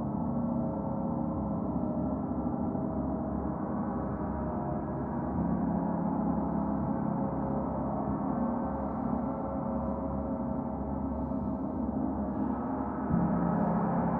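Gongs ringing in a continuous layered wash of many overlapping, shimmering tones. A louder fresh stroke swells in near the end.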